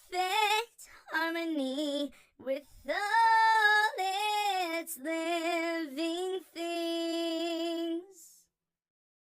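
A single high voice singing a slow melody unaccompanied, in long held notes; it stops a little past eight seconds in.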